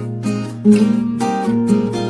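Background music of strummed acoustic guitar, with chords changing about every half second.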